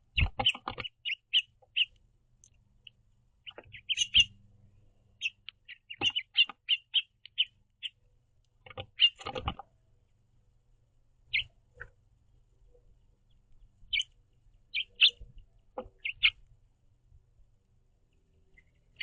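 House finches chirping in short bursts of quick, high notes, with pauses between the bursts. A few sharp knocks and taps are mixed in, several of them in the first second.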